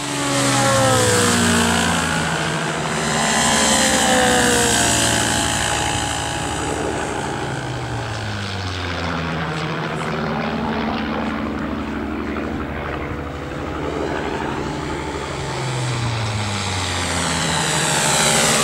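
Propeller-driven engine of a radio-controlled model warbird flying low passes. The engine note drops in pitch each time the plane goes by, several times over.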